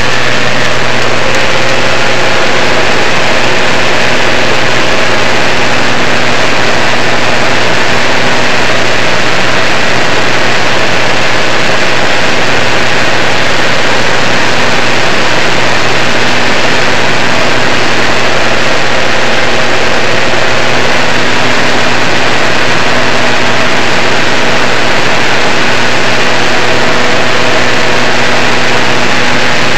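Single-engine jump plane's piston engine and propeller droning steadily inside the cabin, with a low hum and a constant rush of air noise, very loud throughout.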